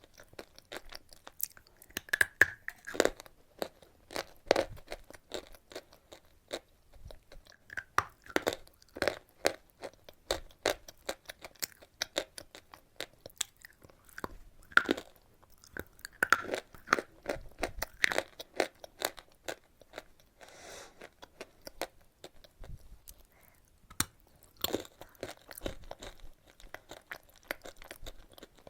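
Close-miked chewing of chalk: irregular crisp crunches and clicks as it is bitten and ground between the teeth, with a brief softer stretch about two-thirds of the way through.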